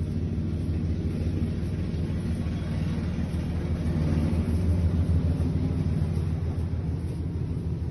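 A steady low rumble with a humming drone, swelling slightly about halfway through.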